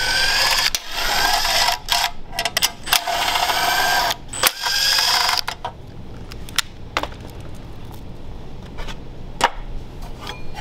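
Cordless impact driver hammering out the bolts of an engine's blower shroud in several bursts, its motor whine rising in each. After about five seconds it stops, leaving a few light clicks of handling.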